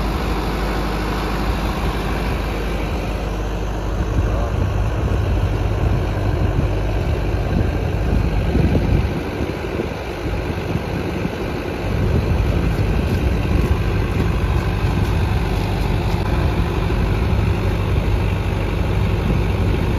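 Sonalika 750 tractor's diesel engine running steadily under load, driving a clay pug mill through its PTO shaft. About halfway through, the drone dips for a few seconds, then comes back louder.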